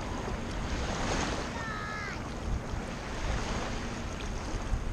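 Small waves washing in the shallow surf, with wind buffeting the microphone. A short high chirp sounds about two seconds in.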